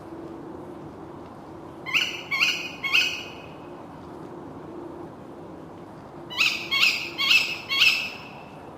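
Tawny owl giving short, sharp calls that rise steeply in pitch, the ke-wick call: three in quick succession, then a run of four a few seconds later. A faint steady low hum runs underneath.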